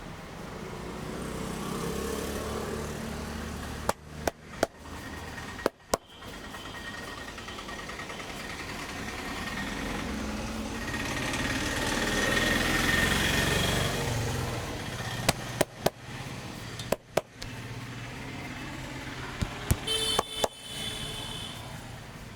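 Steady street traffic noise, swelling in the middle as a vehicle passes, with sharp slaps in small groups of two or three from the barber's hands striking during a head massage.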